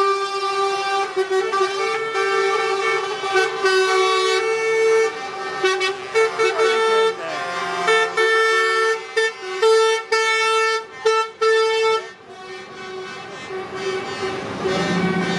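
Truck horns sounding, several at once in a held chord of tones, then a run of short repeated blasts from about eight to twelve seconds in, after which they die down.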